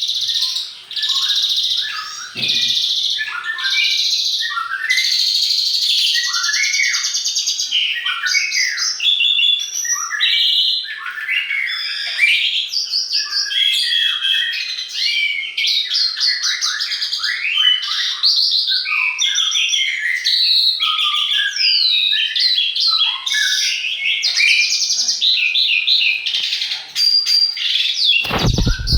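Dense chorus of songbirds, many overlapping chirps, whistles and trills. A brief low rumble breaks in near the end.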